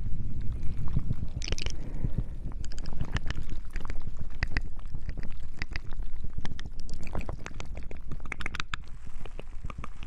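Close-miked ASMR hand sounds: fingers and a lip balm tube moving and rubbing right by the microphone, giving a steady low rumble with many small clicks and crackles that thin out near the end.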